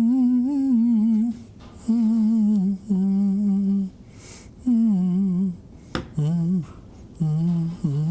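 A person humming a tune in short phrases of about a second each, the pitch wavering, with brief pauses between and a sharp click about six seconds in.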